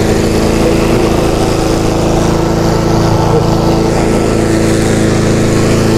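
Petrol walk-behind lawn mower running steadily at one even pitch.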